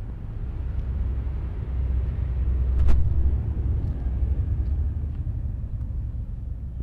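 A low rumble that builds, peaks about three seconds in with a single sharp click, and then slowly fades.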